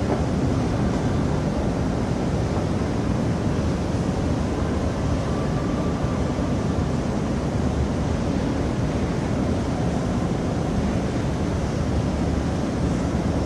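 Steady low rumbling noise of a metro station hall, with a faint thin tone for a second or two about five seconds in.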